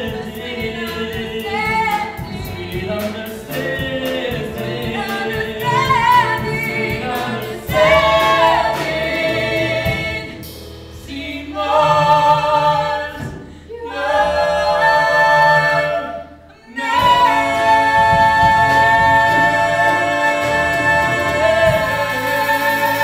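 Two voices singing the climax of a musical-theatre duet over accompaniment, rising in phrases and ending on a long held note for the last third.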